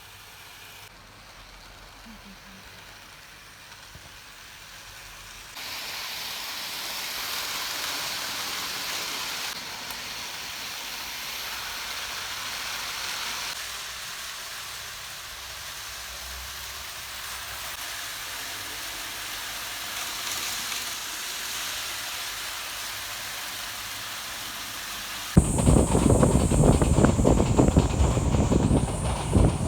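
Steady hiss that starts about five seconds in. A few seconds before the end it gives way suddenly to a loud, dense clatter with a high whine, as an N gauge model train runs close past on its track.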